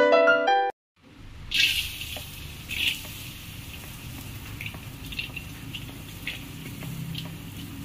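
A piano jingle ends in the first second. Then chopped garlic sizzles in hot oil in a steel wok: a steady hiss with frequent small crackles and two louder spits early on.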